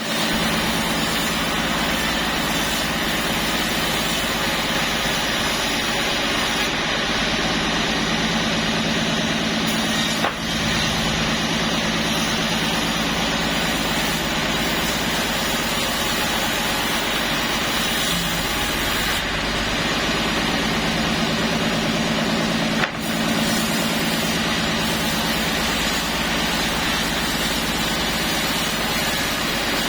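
Sawmill machinery running steadily: a constant engine-like drone with a wide hiss over it, briefly dipping twice.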